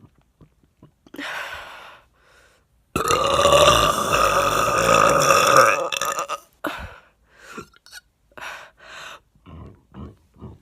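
A woman lets out one long, loud burp lasting about three seconds, its pitch dropping toward the end.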